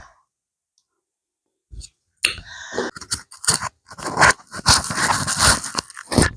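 Dead silence, then from about two seconds in, loud rustling, scraping and clicking of handling noise right on a clip-on wireless microphone as it is fiddled with.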